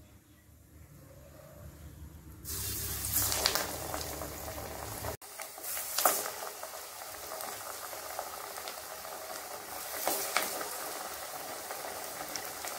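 Raw chana dal masala vadas dropped into hot oil and deep-frying: the oil is quiet at first, then starts sizzling abruptly about two and a half seconds in. The sizzle flares up a few more times as further fritters go in.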